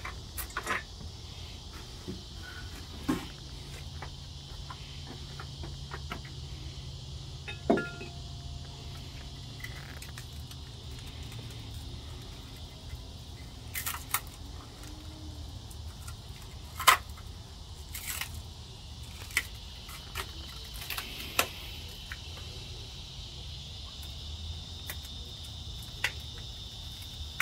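Crickets chirping steadily in a continuous high trill that grows a little stronger near the end. Over it come a few short sharp knocks and clatters as a wooden-crated, plastic-wrapped tool part is handled.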